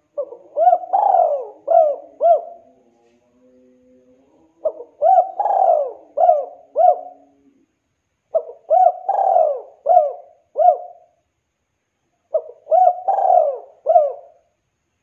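Spotted dove cooing: four phrases, each a quick run of four or five short coos with one longer, drawn-out coo in the middle, separated by pauses of about a second.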